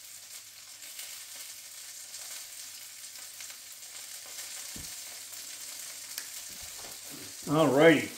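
Sausages sizzling in a frying pan on a gas burner: a steady hiss of frying fat. There is a dull knock about five seconds in, and a short, louder voice sound near the end.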